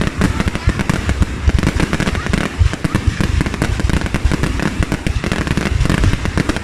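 Fireworks going off in a dense, continuous barrage: many bangs and crackles each second with no pause.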